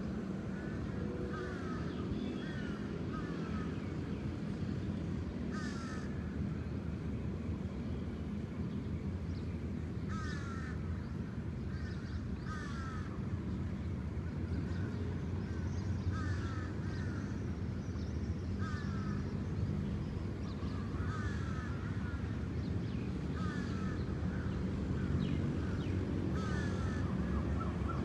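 Crows cawing repeatedly, short calls coming in twos and threes, over a steady low rumble.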